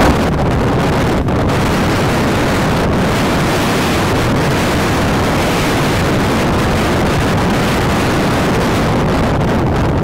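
Gale-force wind buffeting the microphone in a steady, loud rush, over heavy surf breaking on rocks.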